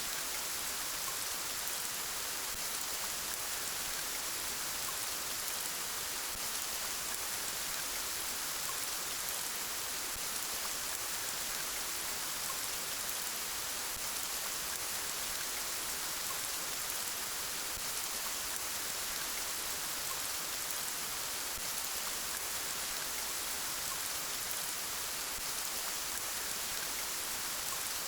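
Steady, gentle rain falling, an even hiss of raindrops.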